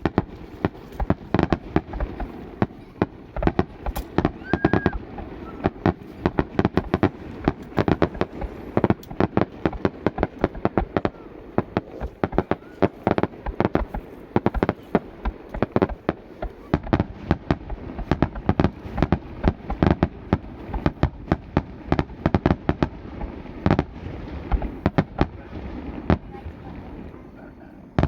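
Aerial fireworks bursting in a dense, rapid barrage: many sharp bangs and crackles a second, one after another, with no break.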